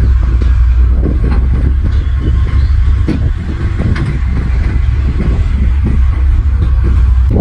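Diesel engine of heavy earthmoving machinery running steadily under load, with a few sharp knocks.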